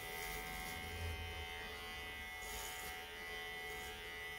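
Cordless electric pet clippers buzzing steadily as they run through a small dog's coat, with short hissing rasps as the blade passes through the fur.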